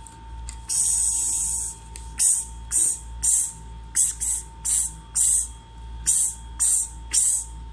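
A woman voicing the sound of the letter X as a hissed "ks" with no vowel. One long hiss comes about a second in, followed by about a dozen short, sharp "ks" sounds at roughly two a second.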